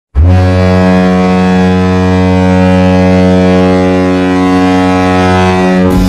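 San Jose Sharks' arena goal horn sounding one long, steady, low-pitched blast, signalling a goal. It starts abruptly and cuts off just before the end.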